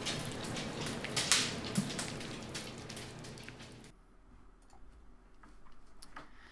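A spoon stirring thick cooked rice stew in a slow-cooker crock: wet squishing with a few sharper knocks of the spoon. It stops abruptly about four seconds in, leaving near silence.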